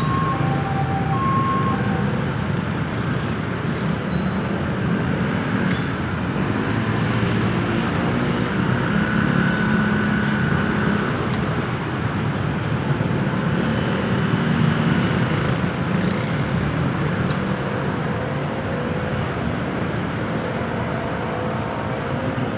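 Steady road traffic noise: vehicle engines running and tyres on the road, with a few faint short tones near the start.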